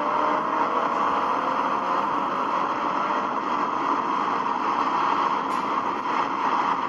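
2008 Roush 427R Trak Pak Mustang's supercharged V8 exhaust running steadily, picked up by a camera at the rear of the car, with a dense rush over it and a faint rising engine note near the start.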